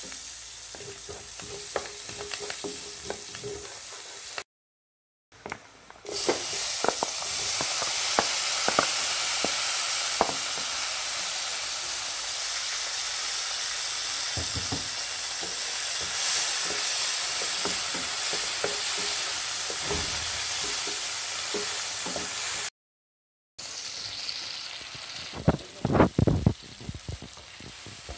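Garlic, curry leaves and mustard seeds frying in hot oil in a nonstick pan, with a wooden spatula clicking against the pan as it stirs. After a short break, with chopped tomatoes in the pan, a louder, steady sizzle goes on. Near the end it gives way to heavier scraping and knocking strokes of the spatula as a powder is stirred through.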